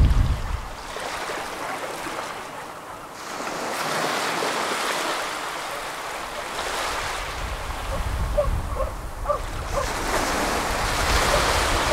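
Small waves lapping and washing up a sandy shore in a steady, swelling wash. Wind gusts rumble on the microphone at the very start and again near the end.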